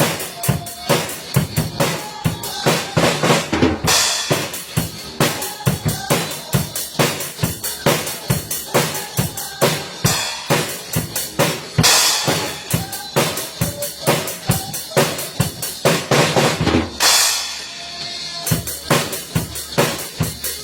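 A drum kit played hard and fast, with a steady rapid pattern on bass drum and snare, rimshots, and a few long crashes of cymbal.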